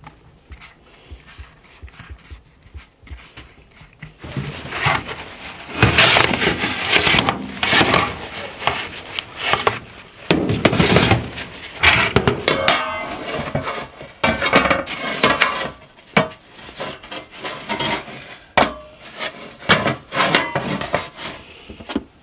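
Irregular rubbing, scraping and knocking of kitchen work against a wooden surface, starting about four seconds in and going on in uneven bursts.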